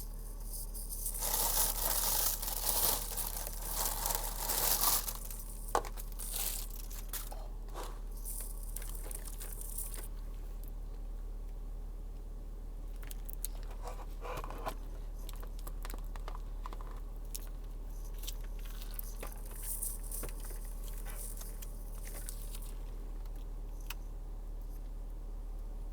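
Crinkling, tearing and crunching of takeout fried food and its wrapping, dense and loudest for the first few seconds, then scattered sharp clicks and quieter handling noises over a steady low hum.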